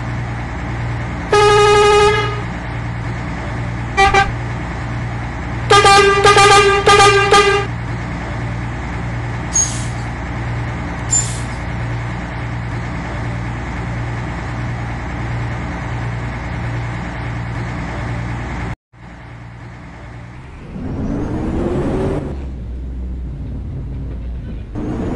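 A vehicle horn sounds over a steady engine rumble: one blast, a short toot, then a run of quick toots. After an abrupt break, the engine note rises.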